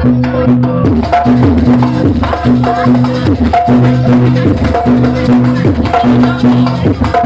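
Jaranan accompaniment music: a Javanese percussion ensemble of hand drums and tuned gongs playing a steady repeating pattern, with dense drum strikes and a short higher note coming back about every 0.8 seconds.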